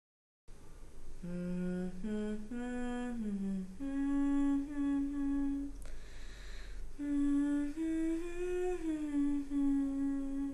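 A woman humming a slow, wordless tune in held, gliding notes, with a breath between phrases about six seconds in.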